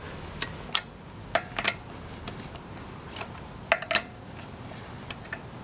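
A series of sharp, irregular metal clinks and clicks as a lug wrench and socket are worked on a car wheel's lug nuts to loosen them.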